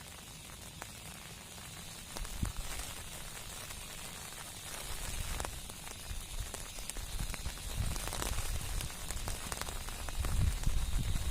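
Heavy rain falling as a steady hiss with scattered sharp drop ticks. A low rumble comes in about two seconds in and grows louder toward the end.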